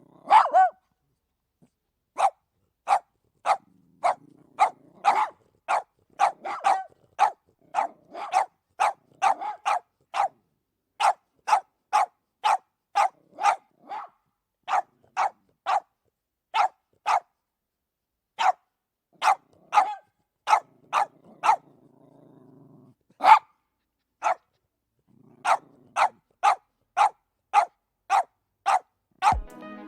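Two small dogs barking in short, sharp barks, about one to two a second, with low growling between the barks at a few points.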